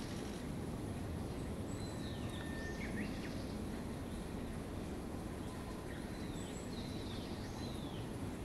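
Birds chirping over a steady low outdoor rumble: short, high, downward-sweeping calls come in two clusters, a couple of seconds in and again near the end.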